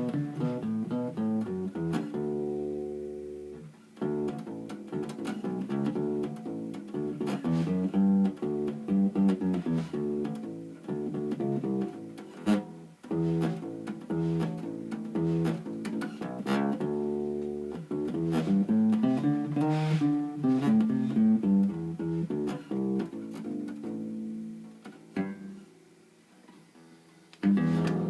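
Fender Kingman acoustic bass guitar, strung with a pinless ToneBar anchor, being played: a continuous line of plucked bass notes. The playing stops briefly near the end and then starts again.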